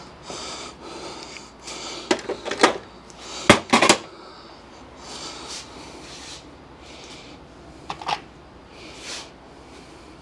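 Heavy breathing of a man straining at work, with a cluster of sharp metallic clicks and clanks from hand tools on the bellhousing bolts about two to four seconds in, and two more clinks near eight seconds.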